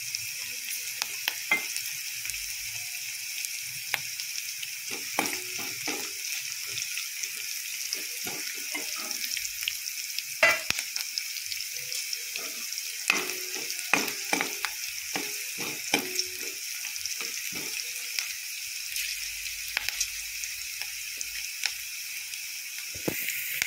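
Chopped onion, garlic and cumin seeds sizzling steadily in hot oil in a non-stick kadai. A steel ladle clinks and scrapes against the pan as they are stirred, mostly through the middle of the stretch.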